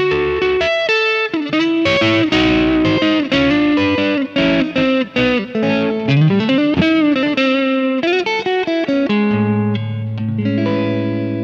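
Electric guitar, tagged as a Fender Stratocaster, played through a Kemper profiling amp with an edge-of-breakup blues tone. It plays single-note blues lead lines with string bends and slides, then lands on a chord about nine seconds in and lets it ring.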